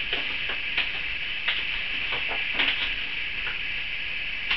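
Green construction paper being folded back and forth, accordion style, giving a few faint crinkles and soft creasing clicks over a steady hiss.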